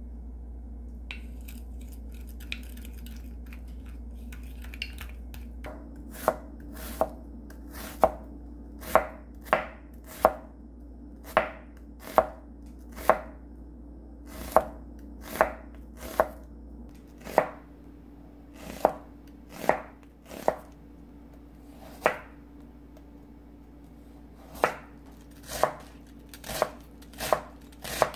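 Chef's knife slicing onion, carrot and cabbage on a cutting board. It starts about six seconds in, and each cut ends in a sharp knock of the blade on the board, about one or two a second, unevenly spaced.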